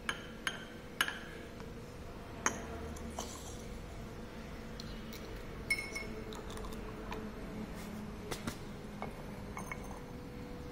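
Glassware clinking: a glass measuring cylinder knocks against the neck of an amber glass bottle while liquid is poured into it, giving several sharp, briefly ringing clinks in the first few seconds, followed by lighter taps as the glassware and bottle cap are handled on the bench.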